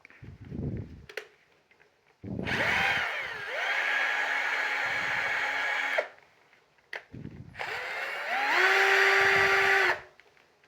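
A 12V cordless drill running with no load, triggered twice: each time the motor and gearbox whine rises in pitch as it spins up, holds steady for a few seconds, then stops abruptly. The second run is louder.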